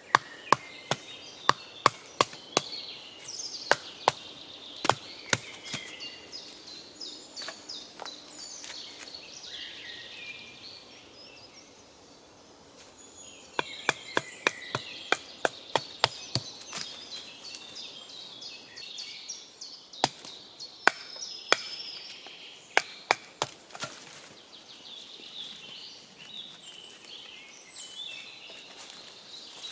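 Sharp wooden knocks from a knife being worked into a freshly cut green stick to split it into strips, coming in runs of one to three a second with a quieter pause in the middle.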